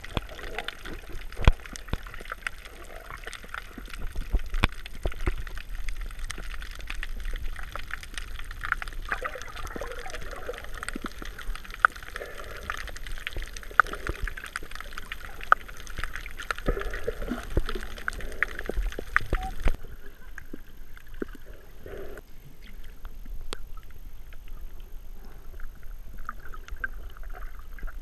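Water sloshing and gurgling, recorded underwater, with many scattered sharp clicks and crackles. About twenty seconds in, the sound abruptly thins out and gets quieter.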